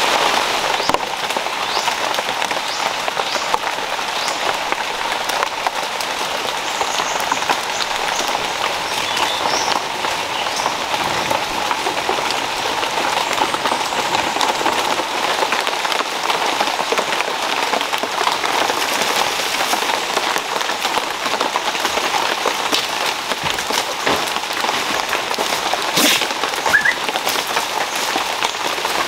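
Heavy tropical rain falling steadily on the forest foliage, a dense patter of drops with one sharper tap near the end.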